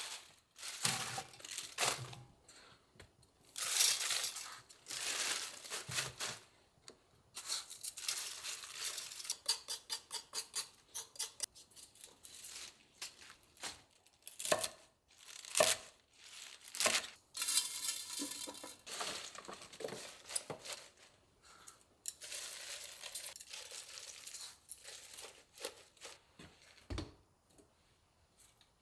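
Crinkling and tearing of packaging, in irregular rustling swishes with light clicks and knocks from handling, including a longer ripping stretch past the middle.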